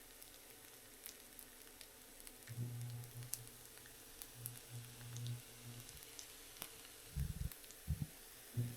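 Faint steady hiss sprinkled with scattered sharp crackles, with a low hum that comes and goes. Three dull thumps come near the end.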